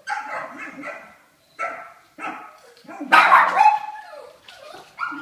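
A dog barking: about six separate barks, the loudest about three seconds in.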